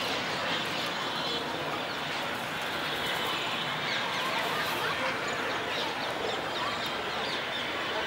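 A huge flock of small birds calling all at once: a steady, dense chatter of many overlapping short chirps and whistles.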